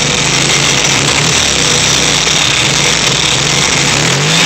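Freshly rebuilt VW 1600 cc single-port air-cooled flat-four engine running on its first start, its speed rising and falling a little about a second in and again near the end.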